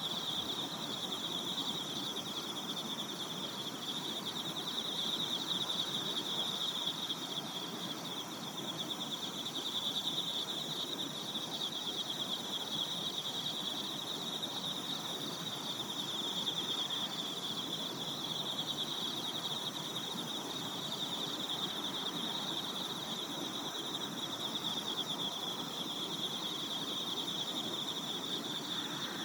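Chorus of insects, likely crickets, giving one continuous, high, fast-pulsing trill with fainter higher trills over a soft outdoor background hiss.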